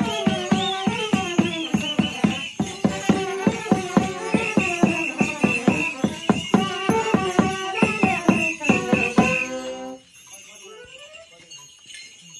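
Romanian New Year capra troupe folk music: a fast steady beat of about three to four strokes a second under a shrill, trilling piping melody, with jingling bells. It stops abruptly about ten seconds in, leaving quieter voices.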